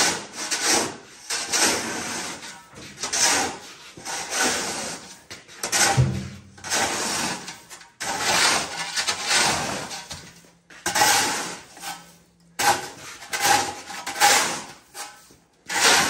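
Metal snow shovel scraping across a concrete slab and pushing snow, in a dozen or so separate strokes about a second apart.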